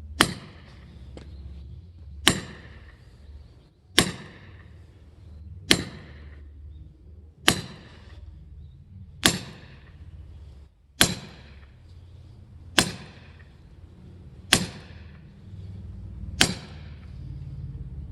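Firewood being split by hand: ten sharp chopping strikes, about one every 1.8 seconds and evenly paced, each with a short ringing tail.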